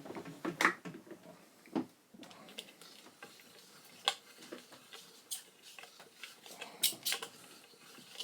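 Scattered light clicks and taps of parts and tools being handled on a workbench, at irregular intervals, with a quick pair of clicks near the end.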